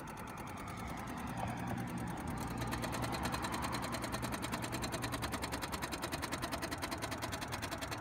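Rapid, steady clicking from the engine bay of a Nissan that is switched off with the battery connected, getting louder about two and a half seconds in. The owners suspect the starter or alternator; the battery cable clamp is loose.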